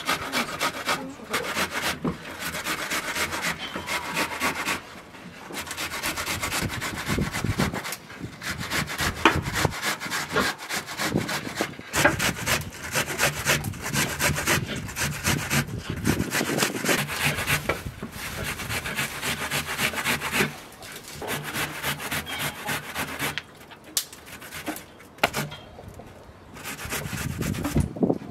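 Whole onion grated on a metal box grater: quick rasping strokes in runs of several seconds, broken by short pauses, with a quieter stretch near the end.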